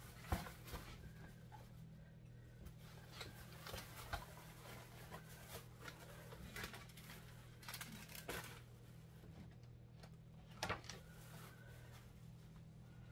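Plastic shopping bag rustling and papers being handled, in short, irregular crinkles and ticks, with a sharper knock just after the start and another near the end, over a steady low hum.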